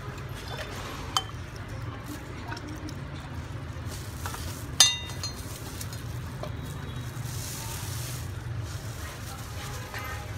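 Soup ladled from an earthenware pot into a bowl: a metal ladle scraping and clinking against the pot and bowl, with one sharp ringing clink about five seconds in and a brief hiss of pouring a few seconds later, over a steady low hum.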